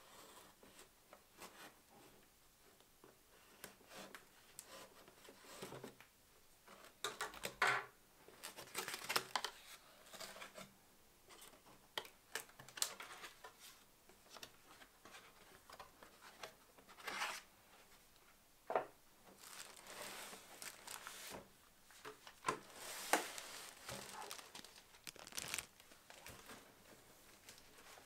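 Cardboard box being opened by hand: packing tape slit and torn along the lid seam, then the cardboard flaps scraping and rustling as they are pulled open, in irregular scratchy bursts.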